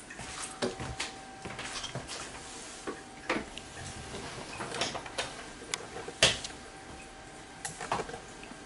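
Scattered clicks and knocks, about half a dozen, from the camera being handled and moved, over a faint steady hum.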